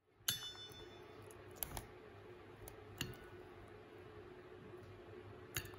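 A hen's beak clicking against a small stainless steel bowl as she pecks at blueberries: a few sharp taps spread out over several seconds. The first and loudest sets the bowl ringing briefly. A faint steady hum runs underneath.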